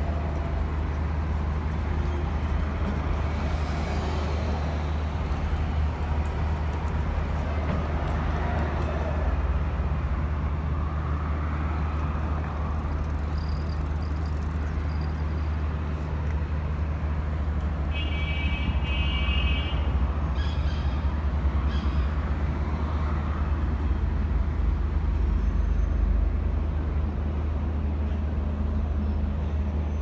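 Outdoor ambience dominated by a steady low rumble of road traffic, with a brief high-pitched tone about two-thirds of the way through.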